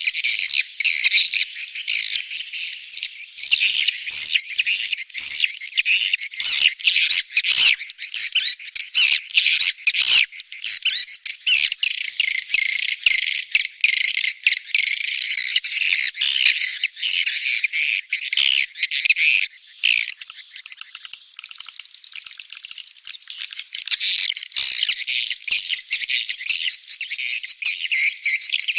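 Edible-nest swiftlets calling: many birds chattering and twittering over one another in a dense, unbroken high-pitched stream shot through with rapid clicking trills. These are the mating and breeding calls of the birds.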